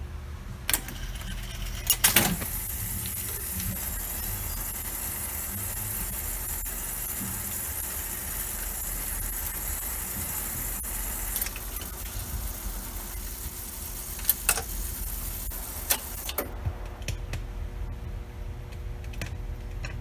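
Old jukebox's automatic record-changing mechanism at work. Its motor runs steadily for about fourteen seconds, turning the record carousel and pulling the selected single onto the turntable, with sharp clicks and clunks at the start and near the end, then a few lighter clicks.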